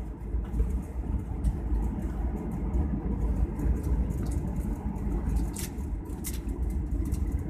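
Airliner cabin noise after landing: a steady low rumble of the engines and air systems heard from inside the cabin. Two short hissy clicks come about five and a half and six seconds in.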